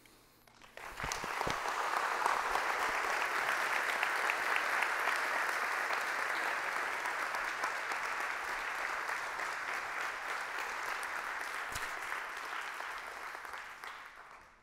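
Congregation applauding: the clapping starts about a second in, holds steady, and dies away near the end.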